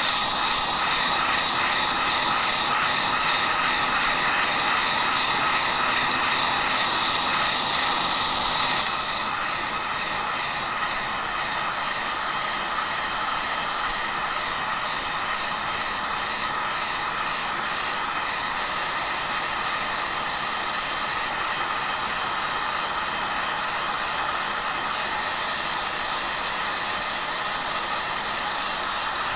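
Wagner HT-1000 heat gun blowing hot air steadily with a motor whine, reflowing the solder under a laptop's nVidia GPU chip. About nine seconds in there is a click and it runs on a little quieter.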